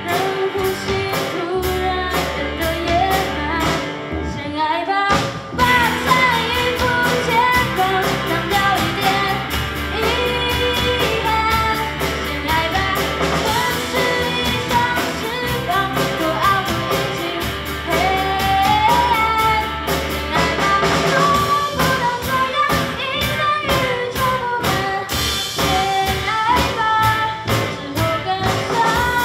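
Live band playing a pop-rock song with a lead vocalist singing over electric and acoustic guitars, bass guitar, drums and keyboard. After a short break about five seconds in, the full band with drums and cymbals comes in.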